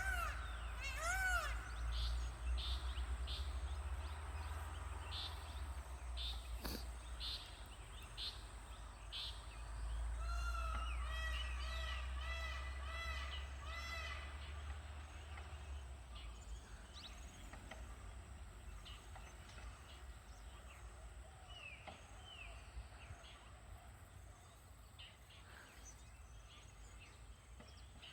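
Forest birds giving warning calls: repeated arched peafowl calls at the start, then a series of short high chirps and more calls, thinning out in the second half. A single sharp crack sounds about seven seconds in, over a low rumble that fades about sixteen seconds in.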